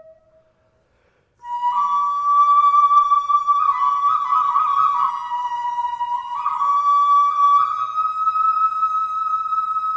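Flute music of slow, long-held notes that step between a few pitches. The music drops to a brief silence, then starts again about a second and a half in.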